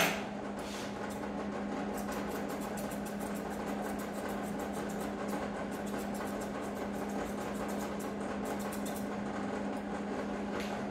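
Chunker shears snipping through a dog's coat in quick runs of small clicks, over a steady electric hum.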